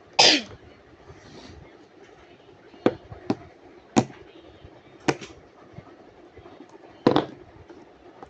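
Slime being squeezed and worked by hand, giving about six sharp pops of bursting air pockets at uneven intervals, the loudest one right at the start.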